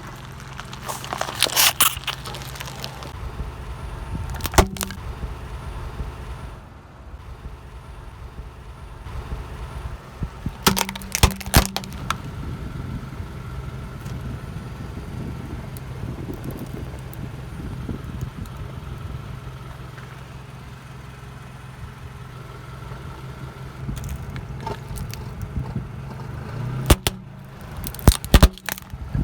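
A car's engine running slowly under a tyre, with short bursts of cracking and crunching as the tyre crushes objects, near the start, about a third of the way in, and several times near the end.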